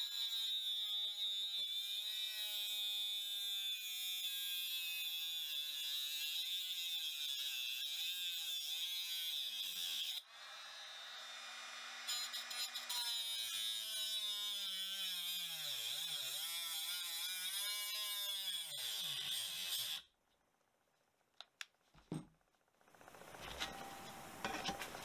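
Cordless Parkside mini angle grinder cutting into the copper casing of a 20 mm coolant thermo switch clamped in a vise. The motor whine sags and recovers in pitch as the disc bites. It stops briefly about ten seconds in, cuts again until about twenty seconds in, then stops, followed by a few faint clicks.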